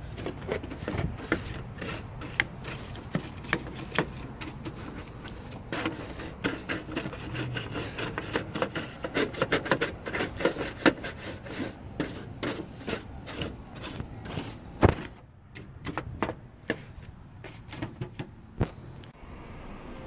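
A stiff plastic-bristled hand brush scrubbing and sweeping across a TV's sheet-metal back panel in quick, irregular strokes, with light taps and one sharp knock about fifteen seconds in.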